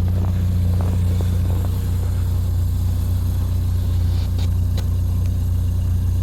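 A vehicle engine running with a steady low hum, with a few faint clicks and taps.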